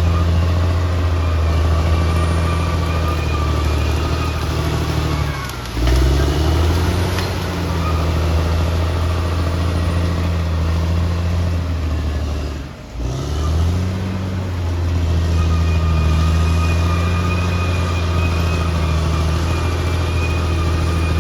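Caterpillar D6R XL bulldozer's diesel engine running steadily at working revs, with a faint high whine above it. Twice, about a quarter and about two-thirds of the way through, the engine pitch briefly drops and climbs back.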